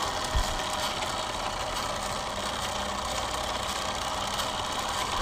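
1936 Wizard Junior hobby drill press running steadily, its small motor humming as it spins a small bit, with a brief low knock about half a second in.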